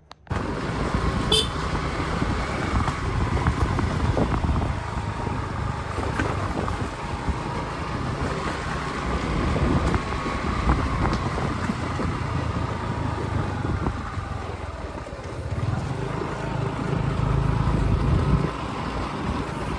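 Steady road traffic noise from running vehicles.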